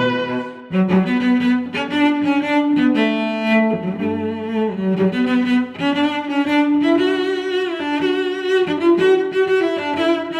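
Background music: a melody of held, bowed-string notes that change pitch every second or so.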